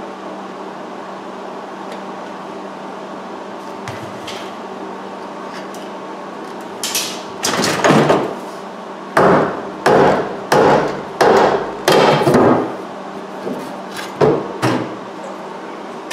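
A hammer knocking a wooden 2x4 brace loose from between a steel roll-cage hoop: about a dozen heavy blows from about seven seconds in, after a stretch of only a steady background hum.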